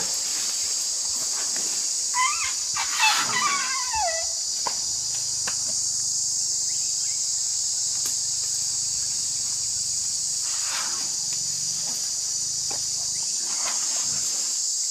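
Steady, high-pitched chorus of forest insects throughout. About two to four seconds in, a few short animal calls sound that fall in pitch.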